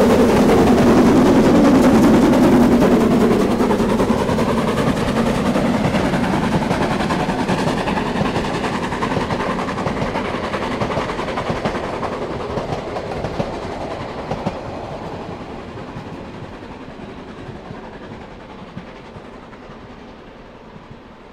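Harz narrow-gauge steam locomotive working past with its train of coaches: sharp exhaust beats at first, then the rhythmic clatter of coach wheels over the rail joints. The sound fades steadily as the train pulls away.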